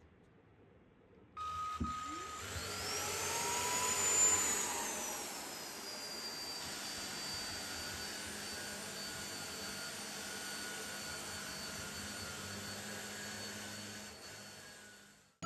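Hitachi Raku-Karu Stick cordless stick vacuum cleaner switched on: its motor whine rises in pitch over about two seconds as it spins up, then settles into a steady high whine with rushing air, and cuts off near the end.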